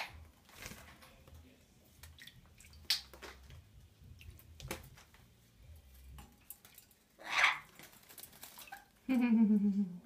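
Indian ringneck parakeet bathing in a water dish: scattered small splashes and ticks, with a louder rushing splash or flutter about seven seconds in. Near the end comes a loud, low pitched voice-like sound lasting about a second.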